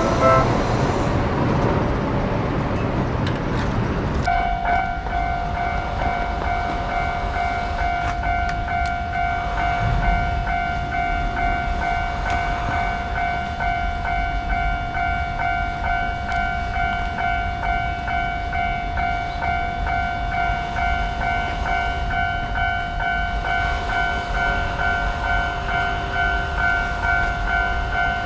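Japanese level-crossing warning bell clanging fast and steadily over the rumble of a passing train, starting about four seconds in. Before it comes louder, even rumbling from a train.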